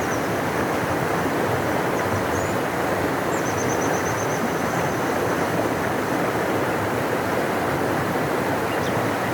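Large river rushing in a steady, deep, even roar of water. Faint high bird chirps sit above it, with a quick trill of repeated notes about three seconds in.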